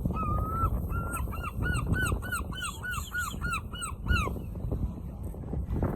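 A seagull giving its long call: one drawn-out note, then a run of about ten short arched calls at roughly three a second, stopping a little over four seconds in.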